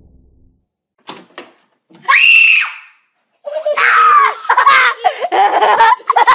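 A person screams in fright, one shrill cry about two seconds in, after a couple of faint knocks. It is followed by a longer stretch of loud screaming and yelling with some laughter.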